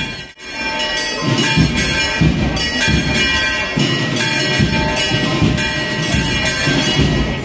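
Church bells pealing, many overlapping ringing tones with repeated heavy strokes, after a momentary break in the sound just after the start.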